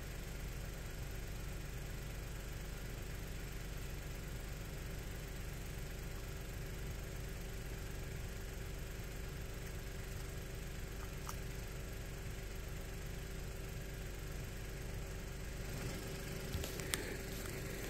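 Steady hum of a car engine idling, with a few faint clicks about two-thirds of the way in and near the end.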